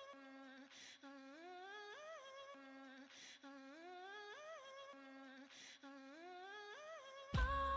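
Faint background music: a short, gently rising melodic phrase repeated over and over, about every two and a half seconds. Near the end much louder pop music starts.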